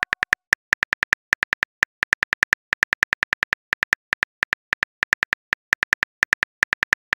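Phone keyboard typing sound effect: a quick, uneven run of short key clicks, several a second, as a text message is typed out.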